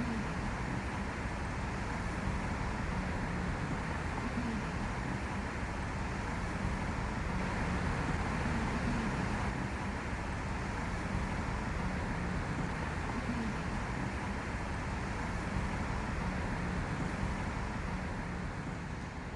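Steady road traffic noise: an even low rumble with a hiss over it.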